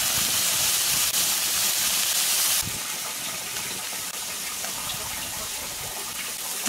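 Beer poured from a can into a hot wok of braised duck, a loud gushing splash for about two and a half seconds. Then the pour stops and the beer and braising liquid fizz and bubble more softly.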